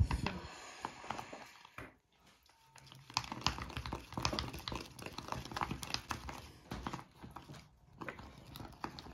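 A spoon stirring and mashing in a small plastic slime cup, a rapid run of small clicks, taps and scrapes as the little beads of the slime kit are crushed into the mix. There is a knock at the very start.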